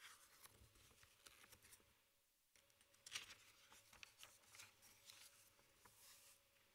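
Near silence broken by faint rustles and light clicks of handling at the ambo as the reader gets ready to read, with the most distinct rustling about three seconds in.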